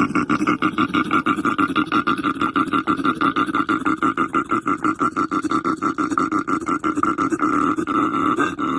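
Australian bustard calling: a rapid, even pulsing of about eight beats a second, carrying a low tone and a higher one, changing slightly near the end.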